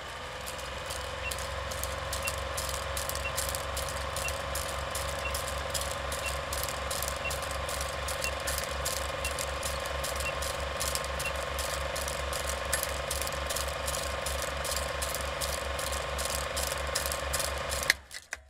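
Old film projector running: a rapid, even mechanical clatter over a steady hum. Over it, a short high beep sounds once a second, about ten times, like a film-leader countdown. It all stops suddenly with a click near the end.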